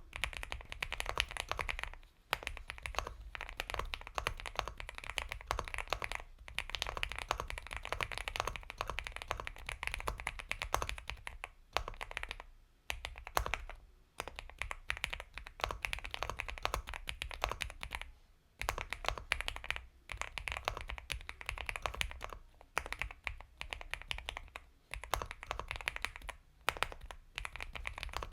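Continuous fast typing on an Epomaker x Feker Galaxy 80 mechanical keyboard with Gateron Milky Yellow Pro linear switches: a dense run of soft, creamy keystrokes in bursts of a few seconds, broken by short pauses.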